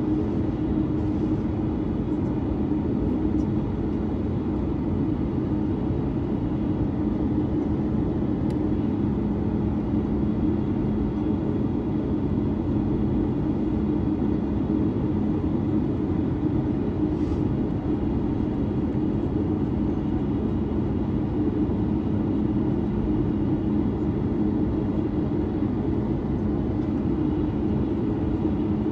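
Steady cabin drone aboard a Boeing 737-9 MAX: a continuous low hum holding two steady pitches, with no spool-up or change in engine power.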